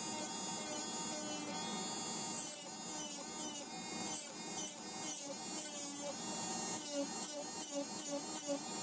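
Electric nail drill running with a rounded bit, grinding the gel off an artificial fingernail. Its whine wavers as the bit bites, with short scratching strokes about three times a second from a couple of seconds in.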